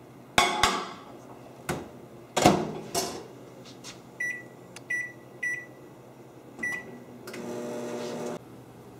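Over-the-range microwave oven: a dish is set down inside and the door is shut with knocks and a loud clack, four short keypad beeps follow, and near the end the oven starts running with a steady hum.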